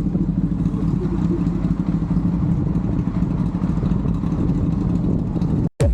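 Motorcycle engine running steadily, a constant low drone that cuts off abruptly near the end.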